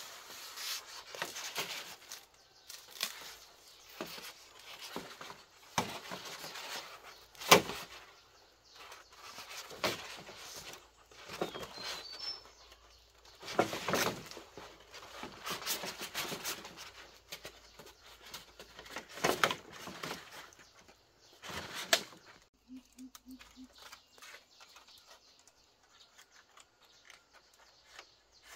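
Poles of freshly cut green bamboo knocking and clattering against one another as they are gathered into a bundle, with rustling of leaves and stalks; the sharpest knock comes about seven and a half seconds in. After about 22 seconds the knocking stops, leaving only faint rustling as the bundle is bound with a thin strip.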